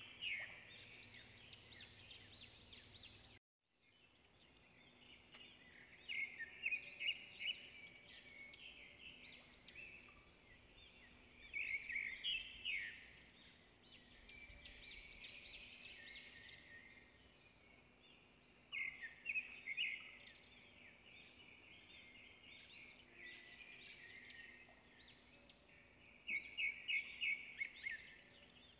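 Birds chirping in short bursts of rapid high notes that come again every few seconds, over a faint steady low hum.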